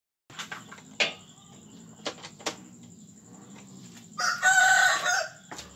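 A rooster crows once, about four seconds in, the loudest sound here, lasting about a second. Before it come a few light clicks and knocks of hands and tools working on the car's front end.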